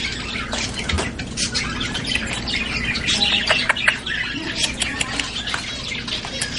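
Pet bird chirping in a busy, rapid run of short sharp chirps, agitated after being let go.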